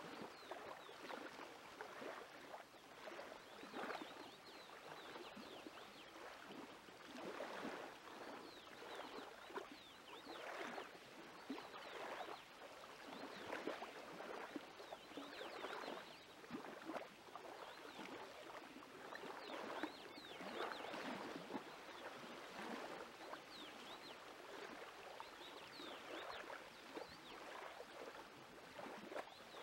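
Hand squeezing and folding wet, sticky pita dough in an aluminium pot: faint, irregular squelching and squishing, a squish or two every second.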